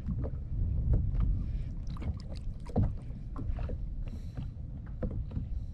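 Choppy water lapping and slapping against a kayak's hull: a steady low rumble with irregular short knocks and splashy ticks.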